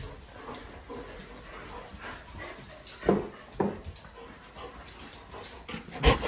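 Dogs whining, with two short sharp barks about three seconds in and another loud bark near the end.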